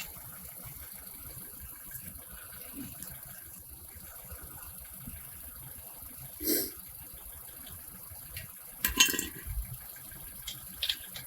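Lug nuts being worked off a car wheel: a short clink about two-thirds of the way through, then a louder clatter of knocks about nine seconds in and a few small ticks near the end, over a steady hiss.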